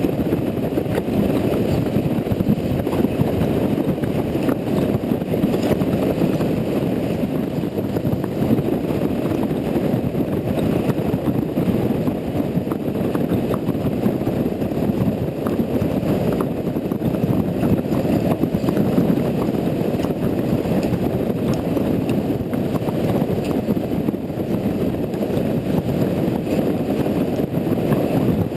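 Riding noise from a Honda Integra NC750D motorcycle: a steady, muffled rumble of wind and engine, dotted with small irregular ticks.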